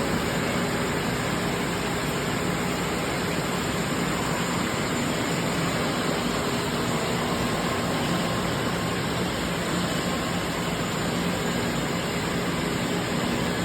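Blanchard No. 22D-42 vertical spindle rotary surface grinder running, a steady machine noise with a low hum that holds even throughout.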